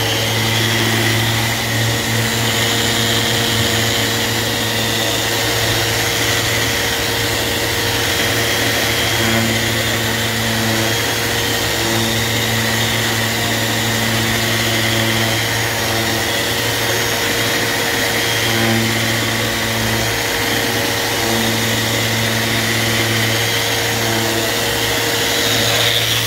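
Festool Rotex RO 150 eccentric sander running steadily while fine-sanding a clear plastic block with an 800-grit disc. It makes a constant hum, with tones that fade in and out as the pad works across the surface.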